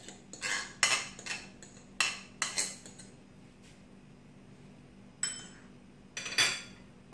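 A spoon clinking and scraping against a glass bowl and a ceramic mixing bowl as mashed banana is scraped out. There is a quick run of taps and knocks in the first three seconds, a pause, then a few more knocks near the end.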